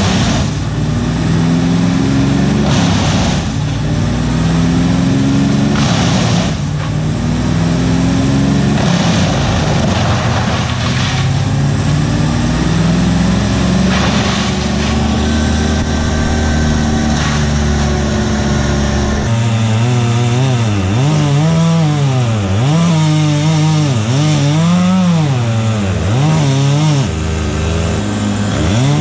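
Two-stroke chainsaw running and cutting wood. Over the last ten seconds its engine pitch dips and recovers about once a second as it works under load.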